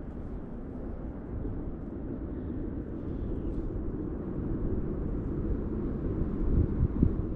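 Wind buffeting the microphone outdoors, a steady low rumble that grows slightly louder.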